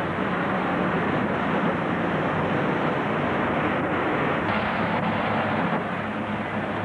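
A steady engine drone with a low hum under a constant rushing, wind-like noise.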